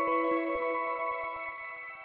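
Closing-credits background music: held, sustained chords over a soft ticking pulse about four times a second, fading out toward the end.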